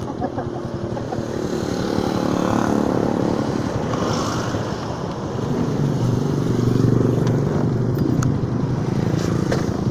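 Motorcycle engine running close by, getting louder about two-thirds of the way through.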